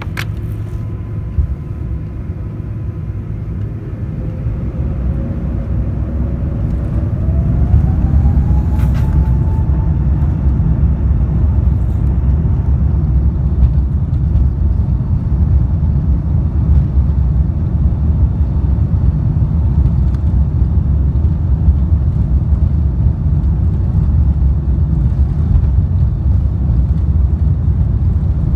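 Jet airliner's engines spooling up to takeoff thrust, a whine rising in pitch over about six seconds as the level climbs, then the steady loud rumble of the takeoff roll, heard from inside the cabin.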